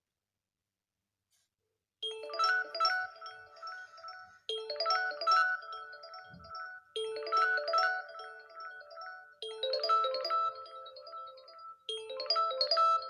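Xiaomi Redmi 6A MIUI ringtone: a short, bright mallet-like melody that starts about two seconds in and repeats as a loop about every two and a half seconds.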